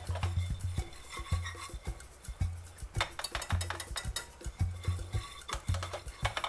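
Wire whisk stirring a thick flour-and-coconut-oil roux in a stainless steel pan: rapid clicks and scrapes of the wires against the metal.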